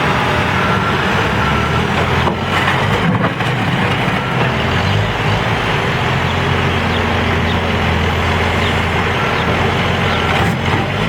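Diesel engine of a Case 590 Super N backhoe loader running under load while it works, with a steady deep engine note that strengthens in the middle. A backup alarm beeps briefly near the start.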